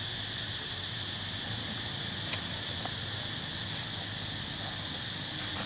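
Steady high-pitched insect chorus, a continuous even buzz, with a couple of faint ticks.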